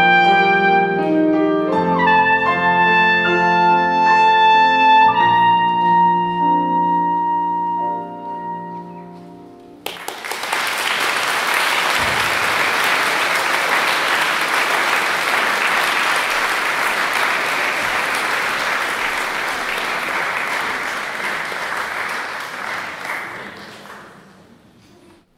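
Trumpet and grand piano play the closing notes of a piece, the last chord fading away. Then an audience applauds for about fourteen seconds, the clapping dying away near the end.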